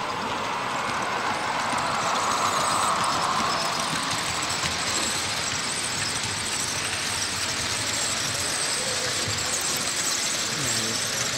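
Model freight train running past on a curve of the layout, over the steady hubbub of a busy exhibition hall.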